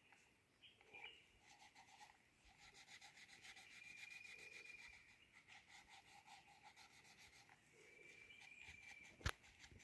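Faint, rapid scratching of a wax crayon rubbed back and forth on drawing paper while colouring in. A single sharp click near the end.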